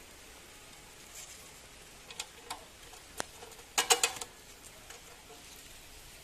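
Small clicks and taps of a steel bolt being pushed by hand through a tiller's handlebar bracket. A few single clicks come first, then a quick cluster of louder clicks about two-thirds of the way in, over a steady faint hiss.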